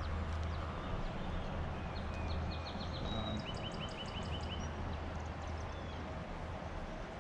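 Wild songbirds singing quick trills of rapidly repeated chirps, bunched about two to four and a half seconds in, over a steady low hum.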